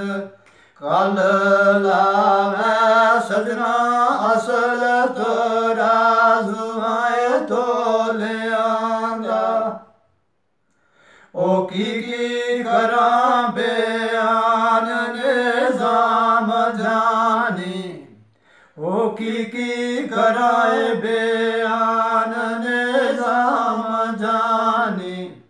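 A man singing a Gojri bait (folk verse) unaccompanied, in long held, wavering phrases. He pauses twice for breath, about ten and eighteen seconds in.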